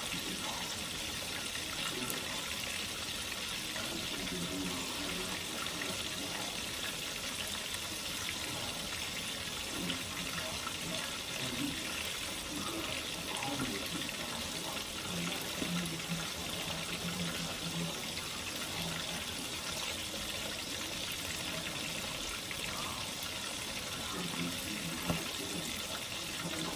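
Flour-coated white snapper fillets frying in hot oil in a cast-iron skillet: a steady sizzle with faint crackles.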